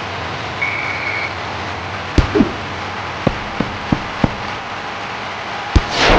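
Volleyball sound effects: a ball bouncing on a gym floor, about six thuds, then a hard hit with a loud swelling whoosh at the end, over a steady noisy hiss. A brief high steady tone sounds about a second in.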